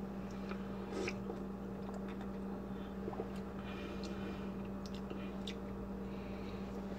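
Faint sipping and swallowing of an energy drink from a mug, with a few small mouth and lip clicks, over a steady low hum.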